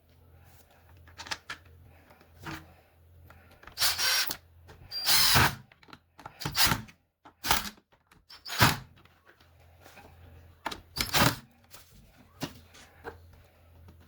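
Irregular clicks, knocks and short scraping bursts of hard plastic parts being handled on a Bissell carpet cleaner as its new belt and drive shaft are fitted. The loudest bursts, each about half a second long, come at uneven intervals through the middle, over a faint steady low hum.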